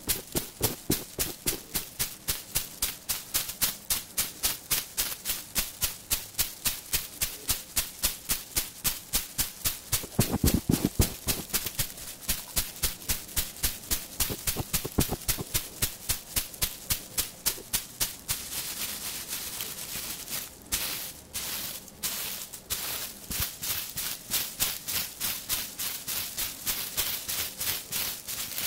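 A bundle of dried mugwort tapped steadily and crisply near the microphone, about three dry rattling taps a second. After about two-thirds of the way through, the taps blur into a denser brushing rustle.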